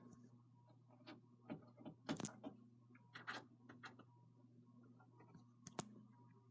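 SMC Royal Flush Hugger 42-inch ceiling fan running quietly on low speed: a faint steady motor hum, with a few scattered light clicks at irregular intervals.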